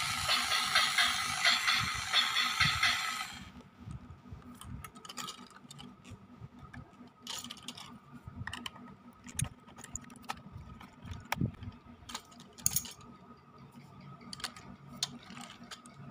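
Background music with a steady beat that cuts off suddenly about three and a half seconds in. Then scattered light clicks and taps of a plastic HO-scale model locomotive body being handled and turned over in the hand.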